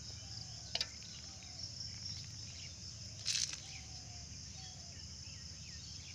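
Steady shrill chorus of insects such as crickets, with two short sharp clicks about a second and three seconds in.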